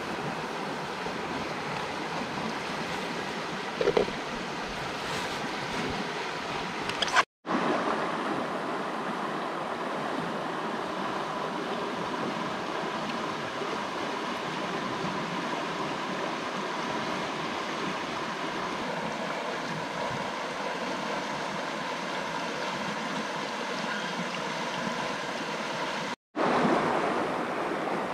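Stream water running steadily over stones, a continuous rushing. There is a short knock about four seconds in, and two brief silent gaps, one about seven seconds in and one near the end.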